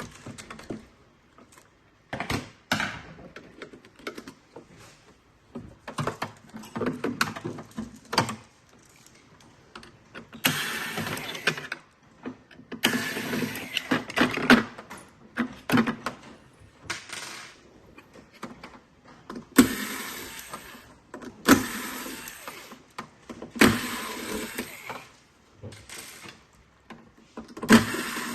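Plastic parts and small tools being handled while a robot vacuum base station's water pump is taken apart: irregular clicks, knocks and rattles with short scraping, rustling stretches.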